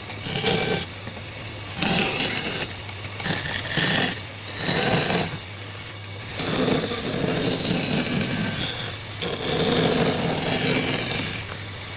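A tool rubbing across wood in about six repeated strokes, some short and some drawn out, over a steady low hum.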